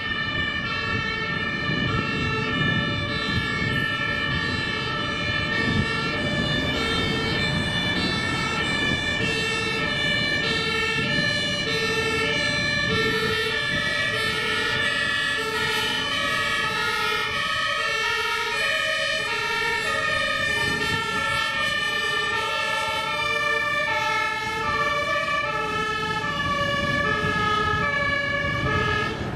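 Two-tone German emergency sirens (Martinshorn) on several fire engines in convoy, sounding at once so that their high-low alternations overlap. Truck engines and tyre noise run underneath.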